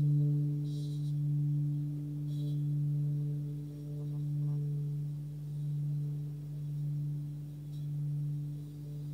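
Hand-forged 26 cm Sun Moon singing bowl, tuned to D at about 146 Hz, sung by rubbing a wooden stick around its rim: a steady low hum with fainter higher overtones, swelling and fading about every second and a half.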